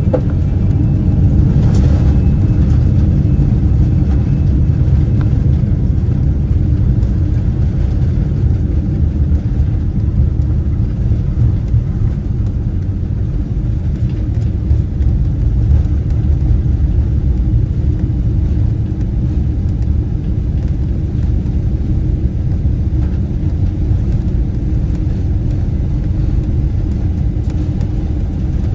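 Steady low rumble heard inside the cabin of a Boeing 777-300ER with GE90 engines, during the approach-and-landing phase of the flight.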